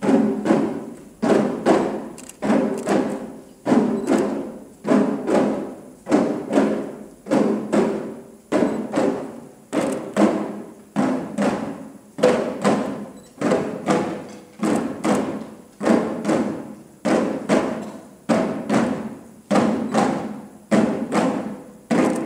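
Drum struck in a slow, steady beat, roughly once a second, each stroke ringing on and fading before the next one.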